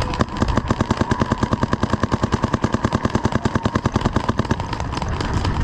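Paintball markers firing a rapid, continuous string of shots, about ten a second.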